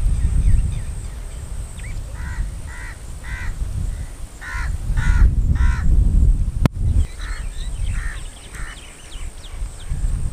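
Crows cawing in short runs of about three caws, several runs in a row, over a low, uneven rumble. A single sharp click comes a little past halfway.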